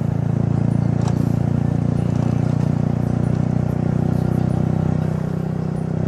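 Motorcycle engine running steadily as the bike is ridden along a road.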